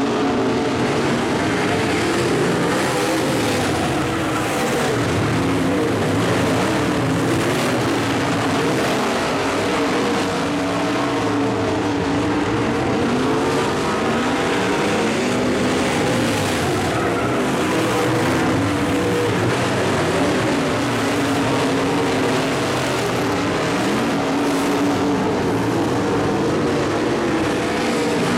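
Several dirt-track modified race cars running together in a race. Their engine notes overlap and rise and fall continuously as the cars accelerate and pass.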